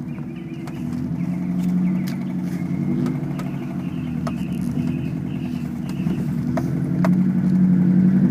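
2006 Subaru WRX's EJ255 turbocharged flat-four engine running, its note swelling twice as the revs rise a little, with a few sharp ticks. The owner suspects rod knock, possibly from running low on oil, behind a loud tapping he hears around 1500 RPM under light load.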